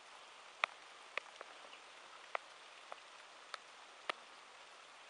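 Rain falling: a faint steady hiss, with about seven sharp, irregular taps of single drops striking close by.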